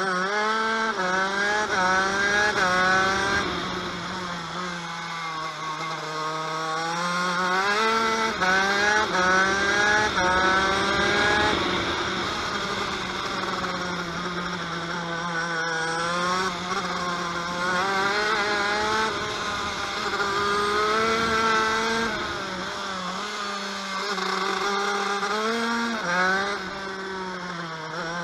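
TM KV92 125cc two-stroke shifter-kart engine, heard from onboard, running hard around a lap. The pitch climbs in short steps as it pulls up through the gears, then drops away under braking and downshifts, several times over.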